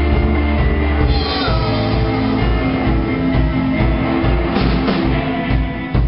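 Live rock band playing: electric guitars and bass over a drum kit with a steady beat, a singer at the microphone.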